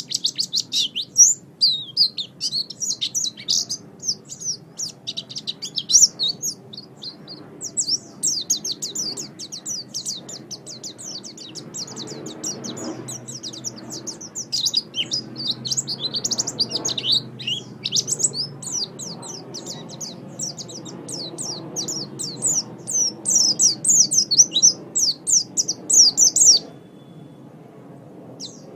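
White-eye (pleci) singing a long, rapid run of high twittering chirps, pausing briefly once and stopping near the end.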